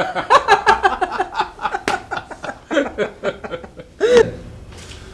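A person laughing in a long run of quick ha-ha's, ending with a short rising-and-falling vocal sound about four seconds in.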